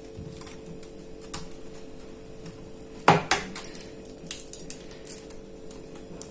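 Pizza cutter wheel rolling through a thin seasoned tortilla on a parchment-lined metal baking tray, giving light scrapes and scattered clicks, with one sharper click about three seconds in.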